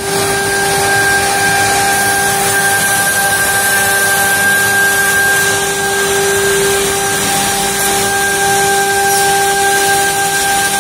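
NikMann KZM6-RTF-CNC heavy-duty automatic edgebander running: a steady high whine of its motors over an even hiss of air.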